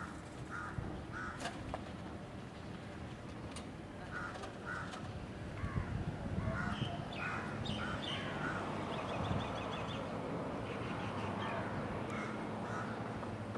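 Crows cawing again and again in short calls, often two or three in quick succession, over a steady low background rumble.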